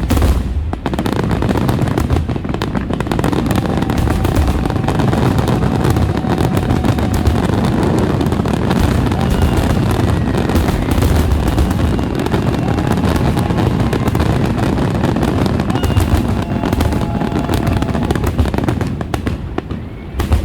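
Fireworks finale barrage: shells bursting in such quick succession that the booms run together into a continuous rumble, with sharp cracks and pops on top and no pause.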